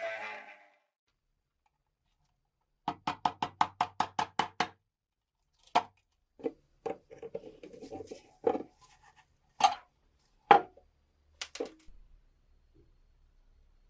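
A quick run of about a dozen sharp taps, roughly six a second, then a handful of separate knocks and clacks with a brief scrape between them: hand work on the lighter's parts during restoration.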